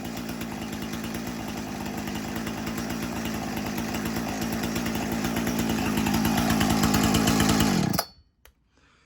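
Husqvarna 455 Rancher two-stroke chainsaw running at speed, getting steadily louder, then stopping abruptly about eight seconds in.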